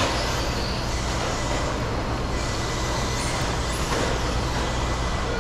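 Electric RC stadium trucks racing on a dirt track: faint high motor whines that rise and fall, over a steady low hum and noise.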